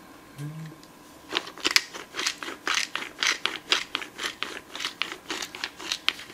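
Hand-twisted pepper mill grinding peppercorns: a run of crunchy clicks, about four a second, starting just over a second in.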